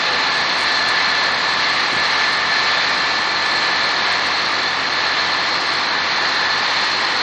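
Airport crash tenders' engines and fire pumps running hard while their water cannon spray: a steady roar with a high whine.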